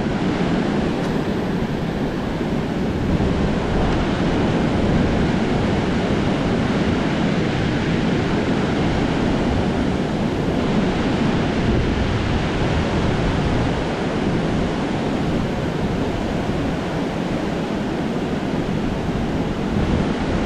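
Steady rush of wind on the microphone mixed with rushing water, with no distinct engine note or knocks standing out.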